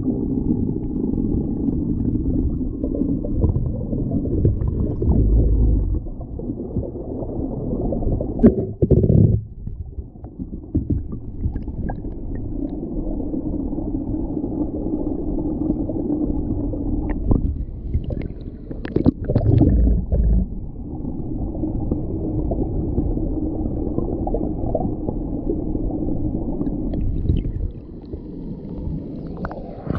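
Muffled, steady rumble of a small waterfall plunging into a river pool, heard from underwater through a waterproof action camera's housing, with a few knocks on the housing about 9 and 19 seconds in. The rumble drops near the end.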